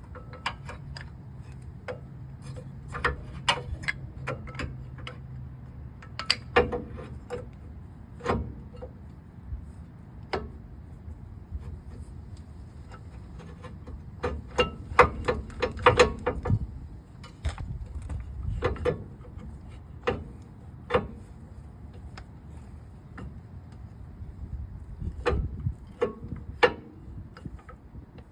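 Scattered metallic clicks and clanks, some in quick clusters, as a brake caliper is fitted back on over the brake pads.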